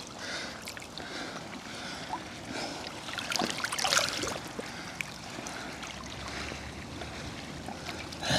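Lake water sloshing and splashing around a large carp held in the shallows, with a louder burst of splashing about three and a half to four seconds in as the fish's tail swirls the water.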